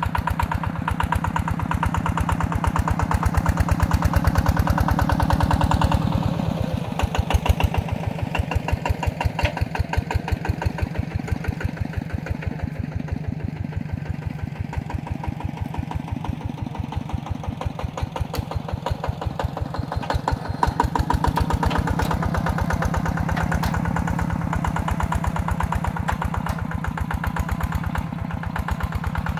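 Single-cylinder Yanmar TF120 diesel engine on a two-wheel walking tractor, running under load while plowing, with a rapid, even knock of firing strokes. It is quieter through the middle of the stretch and grows louder again about two-thirds of the way in.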